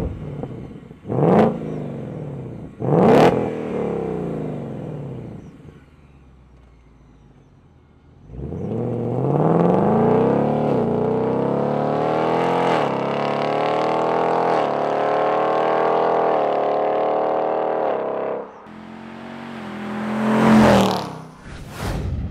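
2021 Ford Mustang Mach 1's 5.0-litre V8 through its stock exhaust in track mode. It is revved sharply twice at standstill, about one and three seconds in, then settles back to a low idle. From about eight seconds in it accelerates hard away, the pitch climbing and dropping back twice as it shifts up, then holds steady until the throttle closes and it falls away, with one more loud swell near the end.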